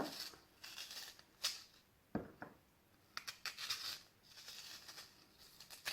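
A spoon scraping and scooping the flesh out of a raw turnip in short, repeated strokes, with a light knock about two seconds in and another near the end.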